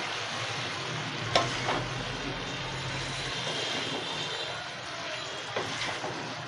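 Chicken and vegetables in sauce sizzling in a nonstick wok while a wooden spatula stirs them, with a sharp knock of the spatula against the pan about one and a half seconds in and lighter knocks near the end.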